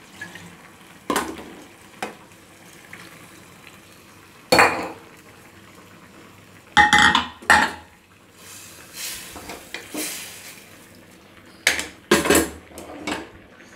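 Metal utensil clanking against a steel pressure cooker pot. There are several separate clanks a few seconds apart, and the one about halfway rings briefly.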